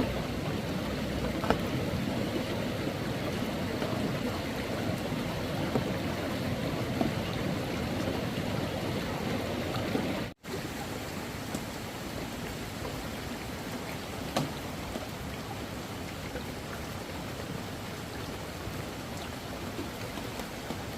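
Flowing floodwater rushing steadily, with a few faint ticks. The sound cuts out abruptly about halfway through, then comes back as a softer, even hiss.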